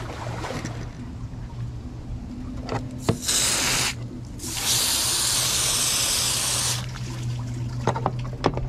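Water hose spraying onto a plastic fish-cleaning table to rinse off blood: a short burst, then a longer one of about two seconds, over a steady low hum.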